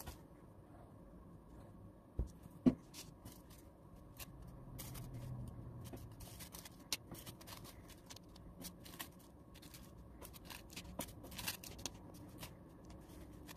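Tissue paper crinkling and rustling as pieces are torn, handled and pressed onto glued paper strips. There are two light knocks a little over two seconds in.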